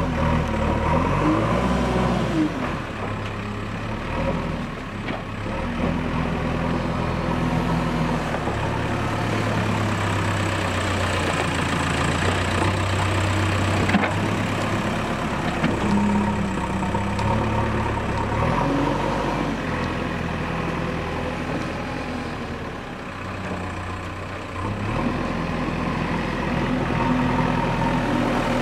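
JCB 3DX backhoe loader's diesel engine running steadily as the front bucket works a mound of soil, its revs rising and falling several times. One sharp metallic knock about halfway through.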